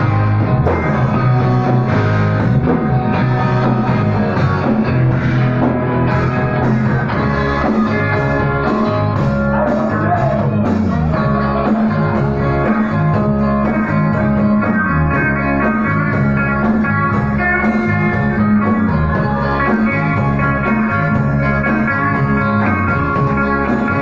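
Live rock band playing loud, electric guitar to the fore over bass and drums, with steady cymbal strokes from about a third of the way in.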